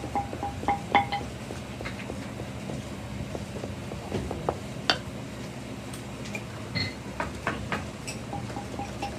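Scattered light clinks and taps of hand work in a shoe workshop, over a steady low hum. Background music with a pulsing beat plays for about the first second, stops, and comes back near the end.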